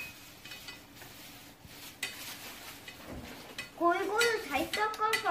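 Chopsticks stirring hot water and eggplant peels in a small stainless steel pot, with light taps against the pot over a faint hiss. A child's voice comes in near the end.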